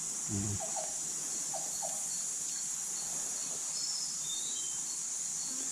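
Steady, high-pitched insect chorus of forest insects, with a few faint short high chirps about four seconds in.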